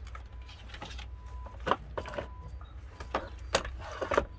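Scattered clicks and knocks of hands working among plastic parts and connectors in a car's engine bay, over a steady low rumble.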